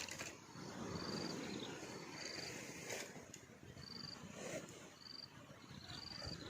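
A short, high chirp on one steady pitch repeating about once a second, over a low rustling background noise.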